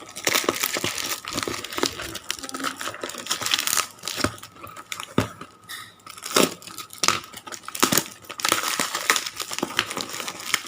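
Packaging being crumpled and torn open by hand: irregular crinkling with sharp rips and clicks coming in clusters.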